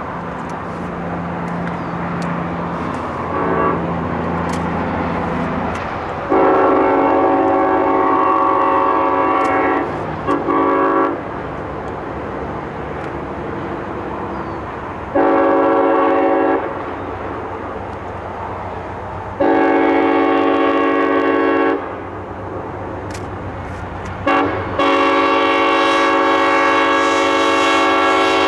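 Air horn of an FP9 diesel locomotive leading a passenger train, blowing six blasts: a long one, a short one, two medium ones, a brief toot, then a long final blast. A steady low rumble of the approaching train runs beneath.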